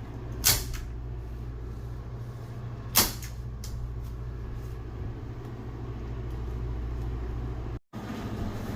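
Window air conditioner running with a steady low hum, with two sharp knocks about half a second and three seconds in.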